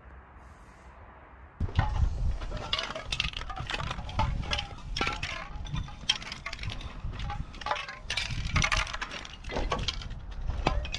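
Metal spray-paint cans clinking and knocking together as they are picked up and sorted in a cloth bag, with rustling of the bag; an irregular run of clinks that starts suddenly about a second and a half in.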